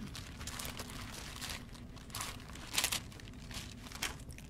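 Thin Bible pages being leafed through: a series of soft paper rustles and crinkles, the strongest about three seconds in.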